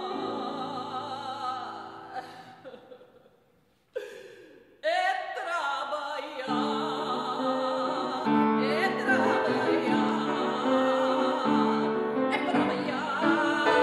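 Mezzo-soprano singing in classical style with piano accompaniment. The music fades almost to nothing about three seconds in, then the voice and piano come back in loudly, with the piano playing chords from about six and a half seconds.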